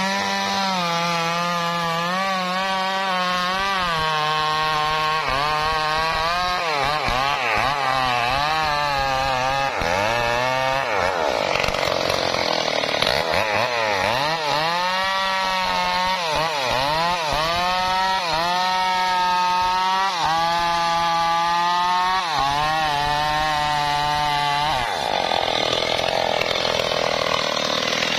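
Two-stroke chainsaw cutting into the trunk of a dead, ring-barked mango tree. The engine pitch keeps dipping and recovering as the chain bogs under load. Twice, about 11 seconds in and again near the end, the steady note gives way for a few seconds to a rougher, noisier cutting sound.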